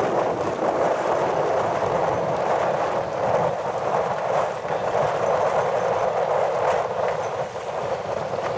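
Steady rush of wind on the microphone and water noise aboard a moving boat, unbroken and even throughout.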